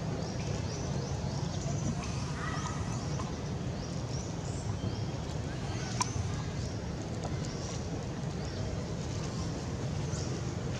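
Outdoor ambience of birds calling, short high chirps repeating over a steady low rumble, with one sharp click about six seconds in.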